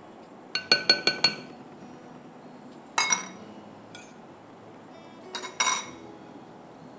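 A metal fork clinking against ceramic bowls: a quick run of about five clinks about half a second in, a single clink about three seconds in, and two more near the end.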